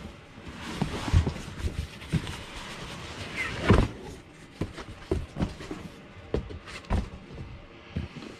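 Cardboard shipping carton being turned upside down and lifted off the boxed units inside: rustling and scraping cardboard with a series of short knocks, the loudest a little under halfway through.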